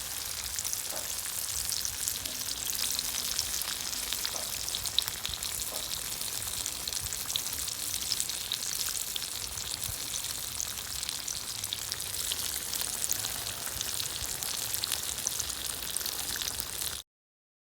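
Coated stone crabs deep-frying in a dish of hot oil: a steady, dense crackling sizzle that cuts off suddenly near the end.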